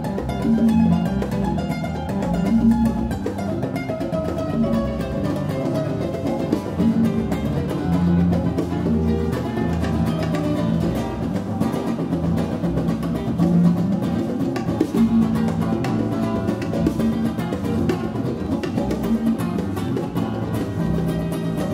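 Live small jazz band playing, the acoustic guitar prominent over bass guitar and congas.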